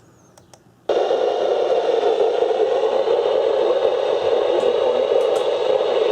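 Radio receiver static: after near silence, a loud steady hiss cuts in suddenly about a second in and holds.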